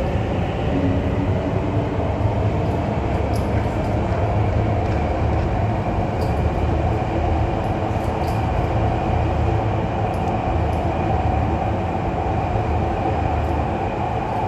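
An MTR East Rail line R-Train electric train running past along an underground platform and away into the tunnel: a steady rumble of wheels and motors.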